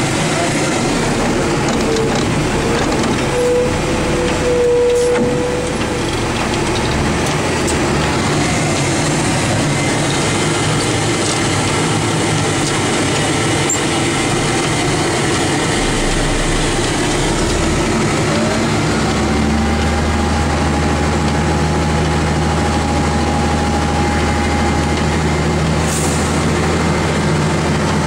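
The cab of a 1991 Ford L9000 diesel plow truck while plowing snow: steady engine and road noise. About two-thirds of the way through, a whine rises in pitch and then holds for several seconds, with a deeper hum under it.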